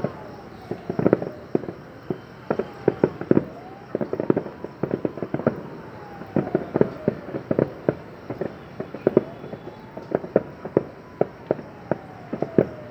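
Fireworks going off in quick, irregular bangs and cracks, with a thin whistling tone that glides up and slowly down in pitch several times.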